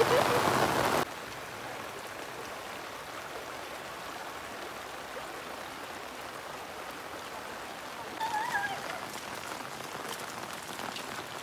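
Steady rain with rushing muddy floodwater, an even hiss. It is louder for about the first second, then drops suddenly to a steadier, quieter wash.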